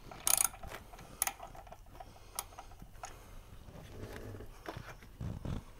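Small ratchet clicking in short bursts, with a few sharp metal clicks, as the single bolt holding the purge control solenoid is loosened.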